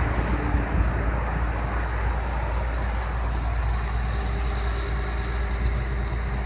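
MAN M2000 concrete mixer truck's diesel engine idling steadily.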